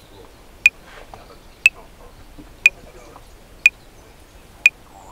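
Metronome clicking at 60 beats per minute: one sharp click each second, five in all, over faint background room sound.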